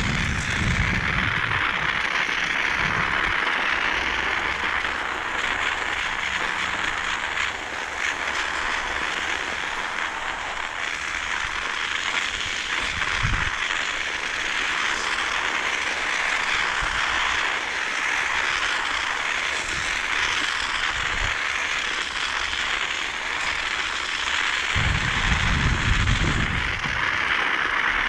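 Steady rushing noise of a bicycle ride outdoors in winter, with wind buffeting the microphone in low gusts: briefly at the start, once in the middle, and longest near the end.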